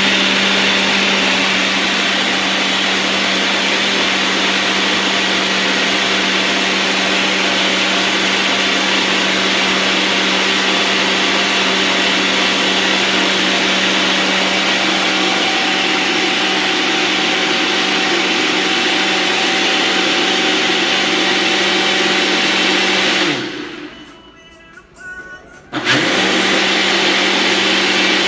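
Nutri Ninja Duo blender motor running a smoothie of ice, fruit and spinach on its automatic Auto-iQ smoothie program, with a steady loud whir. About 23 seconds in it stops for a couple of seconds and then starts again, a pause in the preset blending cycle.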